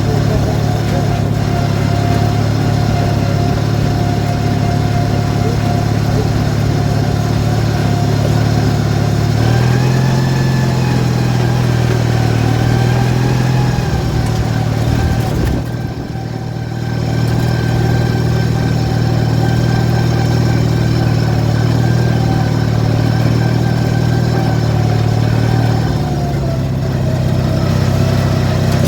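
The 18 hp Briggs & Stratton twin-cylinder engine of a modified Craftsman riding mower, running steadily. Its pitch rises about a third of the way through, the sound drops briefly a little past halfway, and it steadies again before easing near the end.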